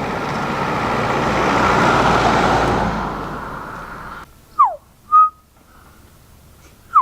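A vehicle passes on the road, its noise swelling to a peak and fading, then cut off abruptly about four seconds in. After it, a two-part whistle (a quick downward slide, then a short steady note) is heard twice.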